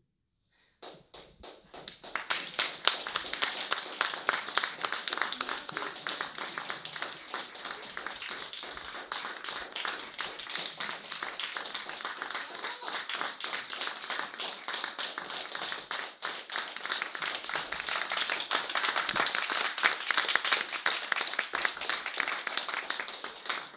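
Audience applauding. The clapping starts about a second in, after a moment of silence, and keeps up steadily.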